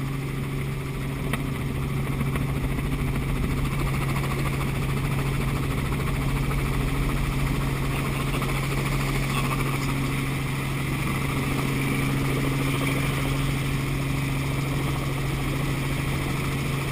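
Tour helicopter's engine and rotor running steadily, a constant low drone with a broad rushing noise, heard from inside the open cabin with its doors removed, as the helicopter descends and sets down on the helipad.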